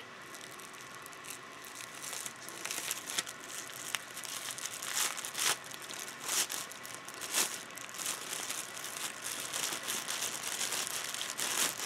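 Irregular crinkling and rustling of something being handled, with sharper crackles scattered through it.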